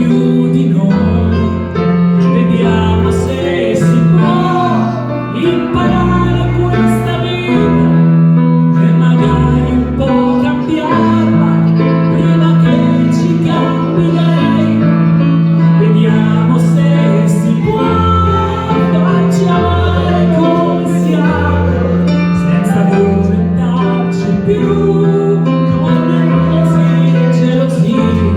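A singer performing a slow pop ballad live, accompanied by piano or keyboard with sustained bass notes.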